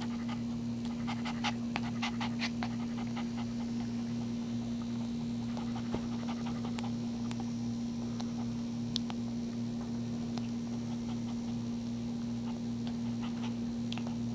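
Newborn Maltese puppy suckling at its mother's teat: a quick run of small wet clicks about one to three seconds in, then a few scattered ones, over a steady low hum.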